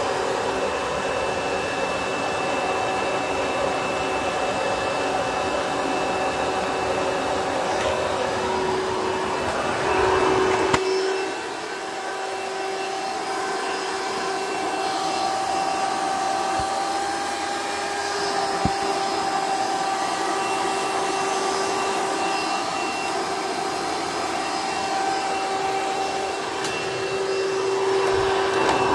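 Several vacuum cleaners, two Dirt Devils and a bagless Hoover, running together: a steady motor whine with several pitches layered. About eleven seconds in, the low rumble drops away and the pitches shift, then the running carries on steadily.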